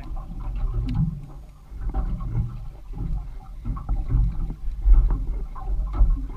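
Wind buffeting the camera microphone on a small boat at sea, a low, uneven rumble that swells and dips, with water slapping against the hull.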